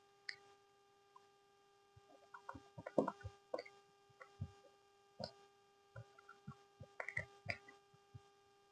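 Close-up eating sounds of soft chocolate cake: irregular wet chewing and mouth smacks with small clicks, busiest about three seconds in and again near the end. A steady faint hum runs underneath.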